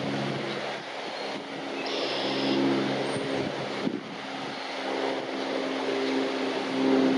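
A distant engine drones steadily, its pitch edging up and getting louder near the end.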